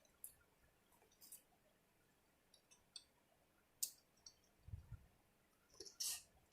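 Faint wet mouth clicks and smacks from eating corn on the cob, a handful of separate clicks, the sharpest about four seconds in, with a low thump just before five seconds.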